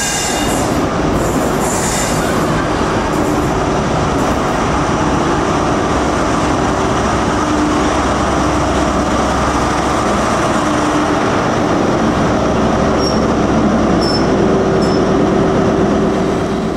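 A GWR Class 43 HST diesel power car running close by as the train moves along the platform: a loud, steady engine drone over rumbling wheel and track noise.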